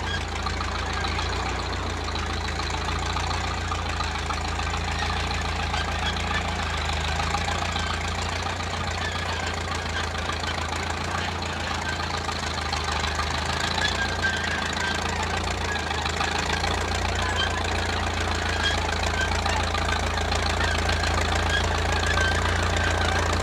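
1934 Caterpillar crawler bulldozer's engine running steadily under load, growing a little louder toward the end.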